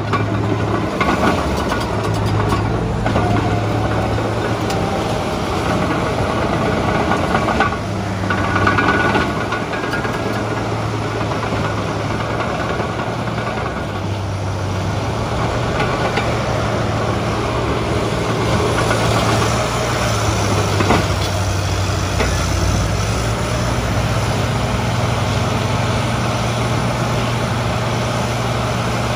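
Caterpillar D6N crawler dozer's diesel engine running steadily, its low hum shifting slightly in pitch now and then.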